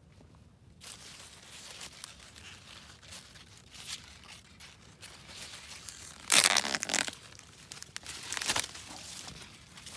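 Corn leaves rustling and brushing against each other as someone moves through the corn plants. There is a loud burst of rustling about six seconds in and a shorter one about two seconds later.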